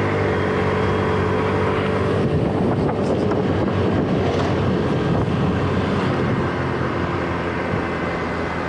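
Motor scooter engine running at a steady cruising speed, with wind rushing over the microphone. The rush turns rougher and a little louder a couple of seconds in, then eases near the end.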